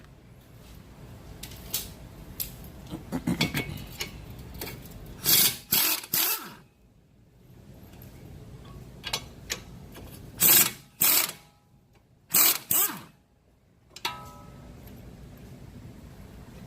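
Short bursts of an impact wrench loosening the 21 mm lower strut bolts, three bursts close together and then, after a pause, a few more. A lighter ringing metal clink follows near the end.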